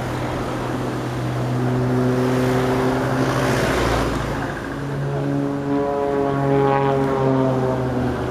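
Single-engine propeller aerobatic plane's engine and propeller droning overhead during a smoke-trailing climb and dive. The note fades briefly about halfway through, then comes back louder with its pitch shifting.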